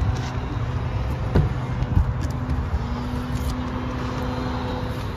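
Steady low vehicle rumble, with two short clicks about a second and a half and two seconds in as the rear door of a Ford F-250 pickup is unlatched and opened.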